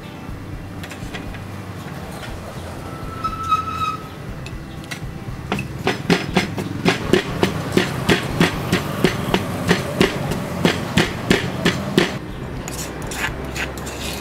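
Wooden pestle pounding chilies in a heavy stone mortar: a steady run of dull knocks, about three a second, starting about five seconds in and stopping near the end.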